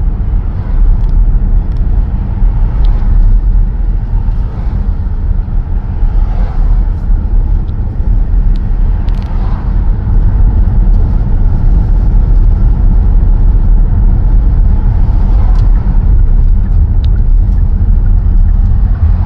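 A moving car's steady low rumble of road and tyre noise, with no change through the stretch.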